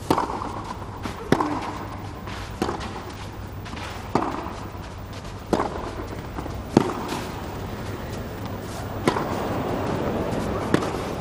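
Tennis ball struck back and forth with rackets in a baseline rally on a clay court: about eight sharp hits, roughly one every second and a half, over steady background noise.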